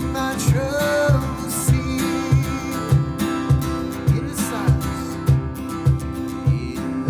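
Music with a steady beat: strummed acoustic guitar over regular low thumps, about two a second, with held and gliding melody notes on top.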